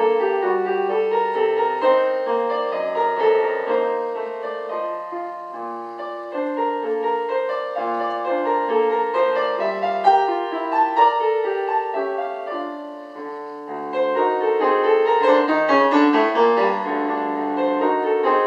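Solo piano playing a classical piece, a steady flow of notes. It dies down briefly past the middle, then the playing grows louder again.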